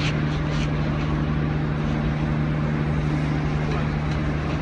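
An engine running steadily with a constant low hum at one unchanging pitch, over a wash of outdoor noise.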